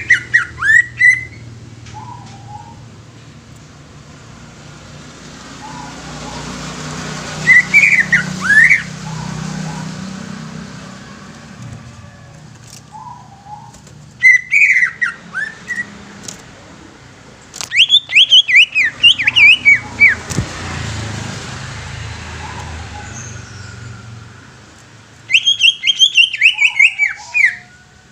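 Cucak ijo (green leafbird) singing: five loud bursts of rapid, sweeping whistled notes, each one to three seconds long, with pauses of several seconds between them.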